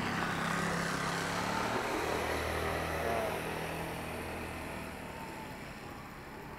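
An engine's steady low hum, fading away over the second half.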